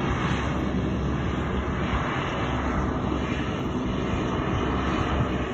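Airliner engines running on the airfield, a steady drone heard across the open apron.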